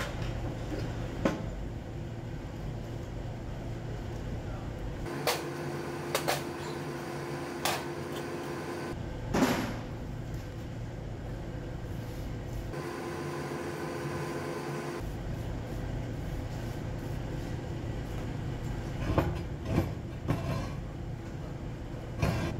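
Scattered knocks and scrapes as loose granular flux and peeled slag are cleared off a freshly run submerged arc weld on steel plate, over a steady workshop hum.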